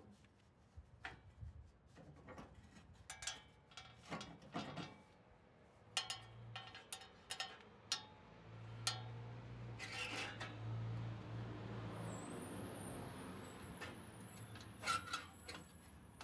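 Faint metallic clicks and light knocks of a snowblower deflector cable and its coil spring being handled and hooked onto the discharge chute bracket. A steady low hum rises in the background about halfway through and fades a few seconds later.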